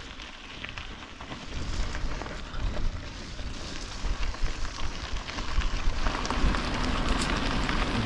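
Bicycle tyres crackling over a gravel trail, with wind buffeting the microphone; the low wind rumble picks up about a second and a half in.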